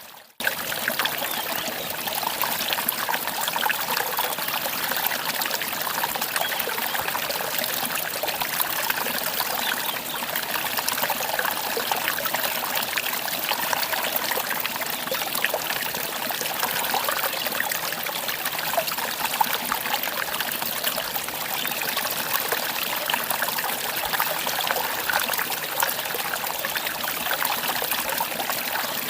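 Mountain valley stream trickling and splashing steadily. It starts abruptly just after the opening music cuts off.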